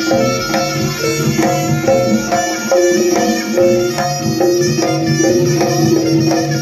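Jaranan gamelan ensemble playing: tuned metal percussion repeats a quick melodic pattern over hand drums and low sustained tones.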